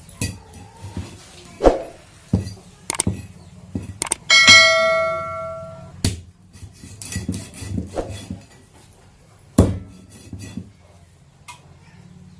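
A series of sharp knocks and thuds, with a struck metal object ringing out loudly once, about four seconds in, and fading over a second or so.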